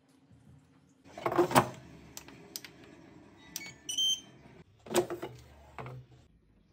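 Kitchen handling knocks and clatter, two louder knocks about a second and a half in and again about five seconds in, with a short electronic beep from a Ninja air fryer's control panel about four seconds in.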